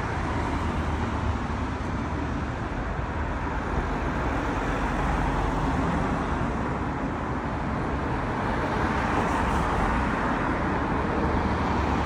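Steady road traffic noise: a continuous rush of passing cars, with no distinct events standing out.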